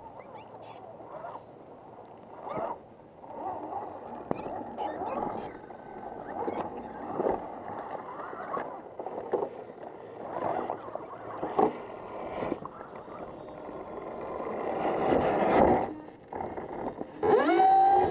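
Electric motors and gears of Axial SCX10 radio-controlled rock crawlers whining up and down in pitch as they climb, with tyres and chassis knocking and scraping on rock. Near the end a truck comes right onto the camera: a loud rising whine with knocks.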